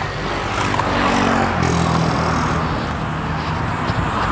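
A motor vehicle passing on the road with its engine running, over steady road noise.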